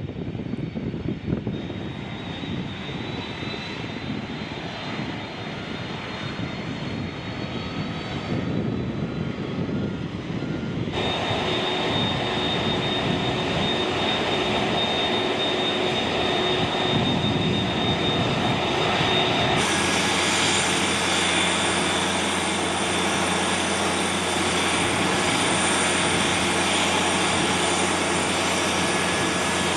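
Lockheed C-5M Super Galaxy's four turbofan engines running: a steady rumble with a high whine held on one pitch. The sound changes abruptly about a second in, again about a third of the way through, and again past the midpoint, as it jumps between different recordings of the aircraft.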